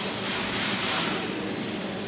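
Steady mechanical running noise, a hiss with a low hum beneath it.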